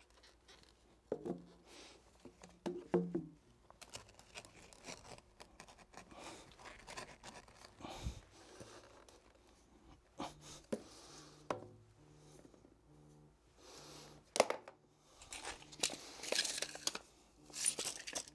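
Faint handling noises: scattered scrapes, knocks and rustling as PVC drain pipe and fittings are worked by hand in a dirt trench, with a tape measure being pulled out near the end.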